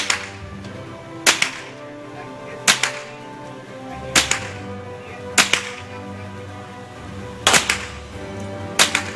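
Single gunshots fired one at a time, about seven in all, spaced a second or two apart at an uneven pace, each a sharp crack with a short echo. Background music plays underneath.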